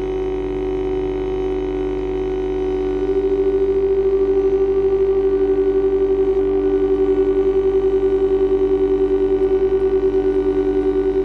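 Long held, microtonal tones from a quintet of viola, accordion, two double basses and clarinet. The tones sit close in pitch, so they beat against each other. About three seconds in, a higher tone swells and an even pulsing beat takes over.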